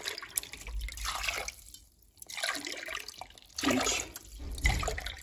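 Water poured from a drinking glass into a stainless steel pot of sugar, splashing in separate pours of about a second each, as four glasses of water are added to the sugar to make syrup.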